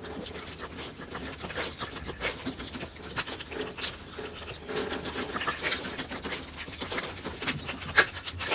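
Dogs eagerly licking and smacking at a squeeze-tube treat through the bars of a wire crate: a rapid, irregular stream of wet clicks and scratchy noise.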